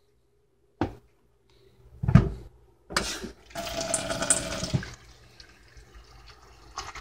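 A few knocks, then water rushing loudly for about two seconds and running on more quietly.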